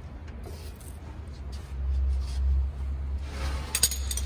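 Low rumbling handling noise and rustling as a person shifts about while lying on his back, with a few light clicks near the end.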